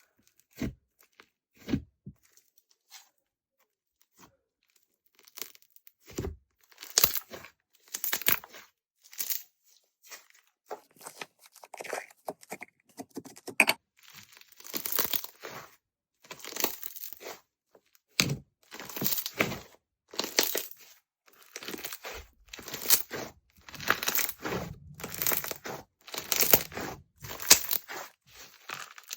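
Slime being pressed and stretched by hand: a few soft clicks at first, then repeated crackling, popping bursts about once a second.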